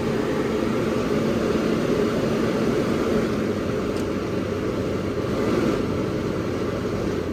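GE Carry Cool window air conditioner running: a steady rush of fan air over a low, even hum.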